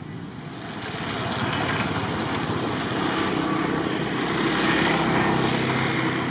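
A motor engine passing by: a steady mechanical hum that swells over a few seconds and eases off near the end.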